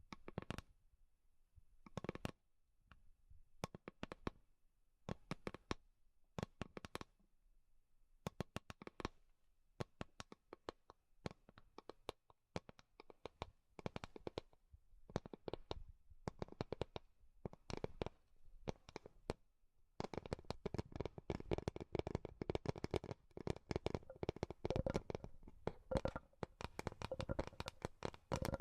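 Tapping on wood: short clusters of quick, sharp taps about once a second, turning into dense, near-continuous rapid tapping about twenty seconds in.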